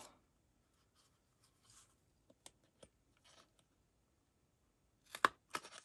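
Paper being handled on a craft table: faint scattered rustles and light taps, then a quick cluster of sharp clicks about five seconds in.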